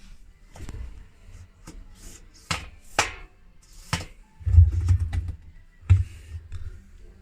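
A few light clicks and knocks, then louder low thumps about four and a half and six seconds in, like handling noise.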